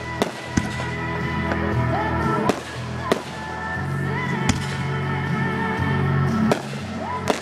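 Fireworks going off: about seven sharp bangs spaced unevenly over the seconds, with music playing steadily underneath.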